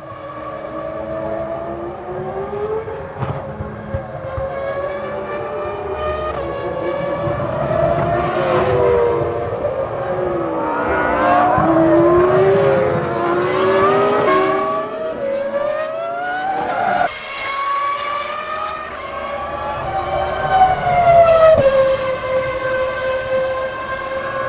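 Several 2000-season Formula One cars' 3.0-litre V10 engines running at high revs as they pass, pitch climbing through upshifts and falling on downshifts and in the sweep as each goes by.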